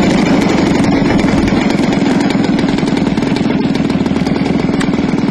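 Red Aero MXS-R model aerobatic plane's 50cc two-stroke gasoline engine running steadily at low throttle while the plane taxis on its wheels, a rapid even putter.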